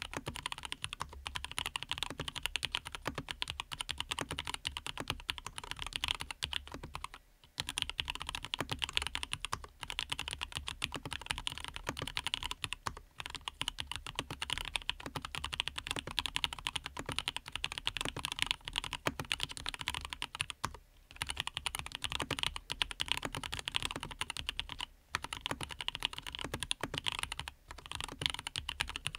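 Continuous fast typing on a Dreadnought custom mechanical keyboard fitted with lubed Everglide Aqua King linear switches: a dense patter of keystrokes, with short breaks about 7, 13, 21 and 25 seconds in.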